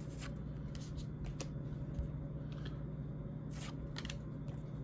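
Trading cards being slid one at a time off a small stack held in the hands, giving several short, soft scuffs of card stock. A steady low hum runs underneath.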